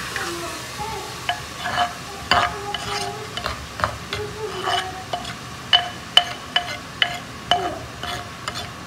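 A metal ladle stirring and scraping, first in an aluminium pot and then in a clay bowl of cooked masala. It clinks about a dozen times at an irregular pace, each clink ringing briefly, over a steady sizzling hiss of frying.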